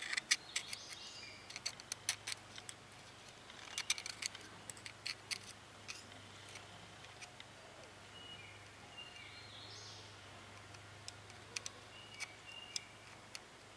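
Faint, irregular clicks and light scraping of a metal pick working inside a needle-bearing housing, fishing out metal flakes left by a worn clutch.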